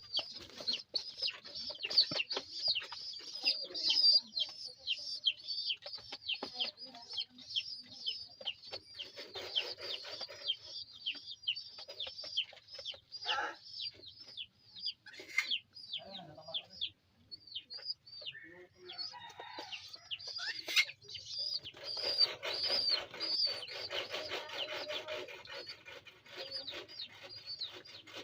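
Pigeon chicks (squabs) peeping: a rapid, continuous run of short, high, downward-sliding squeaks, several a second, with raspier bouts of calling mixed in.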